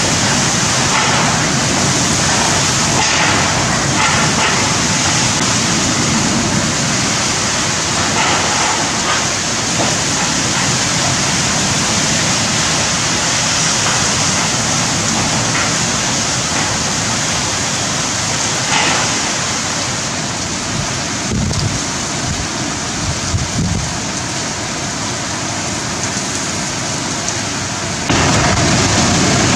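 Tropical cyclone wind with very heavy rain: a loud, steady rushing noise of wind-driven rain, with low gusty rumbles about two-thirds of the way through. Near the end it cuts suddenly to a louder stretch of the same storm.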